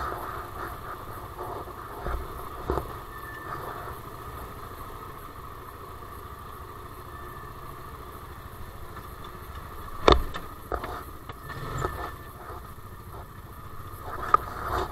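Side-by-side UTV engine running at low speed while the machine crawls over a rocky trail, with scattered knocks and clunks from the vehicle going over rocks; the loudest knock comes about ten seconds in.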